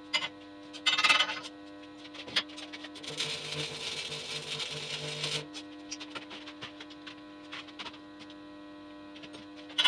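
Stick welding with an AC 'buzz box' arc welder and 6013 rods. A crackling, buzzing arc runs for about two seconds, starting about three seconds in. A steady hum runs through the rest, with a brief loud rasp about a second in.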